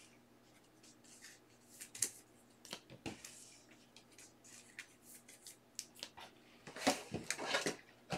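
Faint rustling and light clicks of trading cards being handled on a table, sparse at first and busier near the end.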